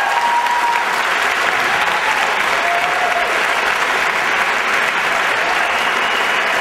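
Audience applauding steadily after an a cappella piece ends.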